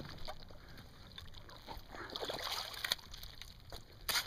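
Water sloshing and splashing, with scattered light clicks and a short loud burst of noise near the end.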